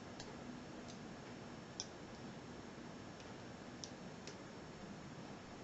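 Faint scattered clicks of a lock pick working the wafers of a five-wafer Yale wafer padlock held under tension, about six small ticks, the clearest about two seconds in.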